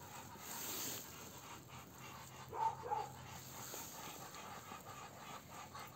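Muscovy drakes squaring off, making faint breathy hissing sounds, with a brief sharper sound about two and a half seconds in.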